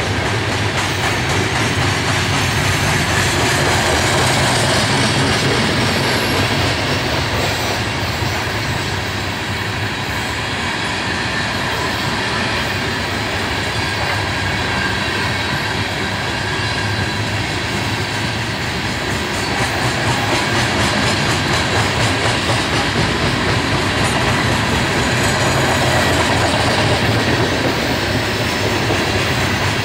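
Coal cars of a long freight train rolling past: a steady rumble and clatter of steel wheels on the rails.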